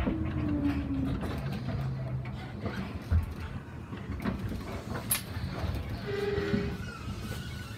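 Yamaman Yukarigaoka Line rubber-tyred new-transit car running along its concrete guideway, heard from the driver's cab: a steady low rumble with scattered clicks and knocks. A short falling whine comes at the start, a sharp knock about three seconds in, and another short whine about six seconds in.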